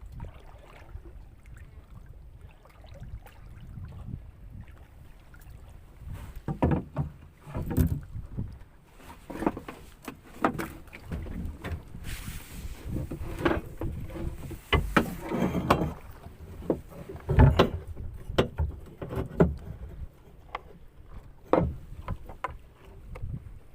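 Irregular knocks and clunks over a low rumble of wind on the microphone, growing more frequent and louder after the first few seconds.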